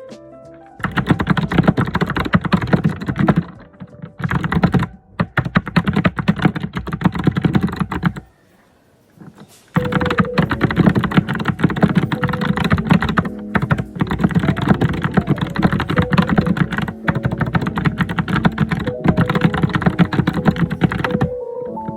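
Fast, busy typing on a computer keyboard, a dense run of key clicks. It pauses briefly about three and a half seconds in and stops for over a second around eight seconds in, then resumes.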